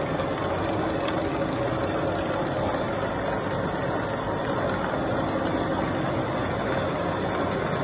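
Steady machinery hum of a running machine shop, an even mechanical noise with a faint constant whine and no change in level.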